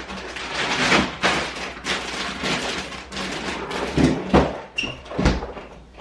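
Rummaging in a packed freezer: frozen-food bags rustling and being shoved around, with a few thuds about four and five seconds in.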